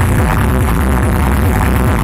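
Three large sound systems playing loud electronic dance music at the same time, their heavy bass and overlapping tracks clashing into one dense wall of sound.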